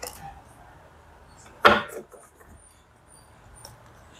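Oracle cards being handled and laid out on a tabletop: one short card slap or slide about two seconds in, with faint clicks and rustles around it.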